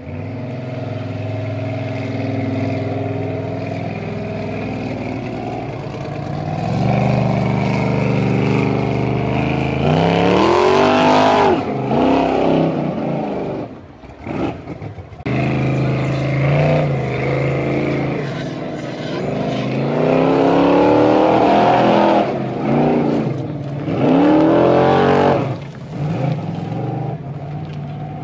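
Formula Offroad competition car's engine working hard up a steep climb. It revs in several long surges, the pitch sweeping up and down, with brief drops in between.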